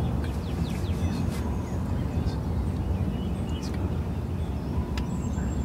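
Outdoor backyard ambience: a steady low rumble with a few short, scattered bird chirps over it.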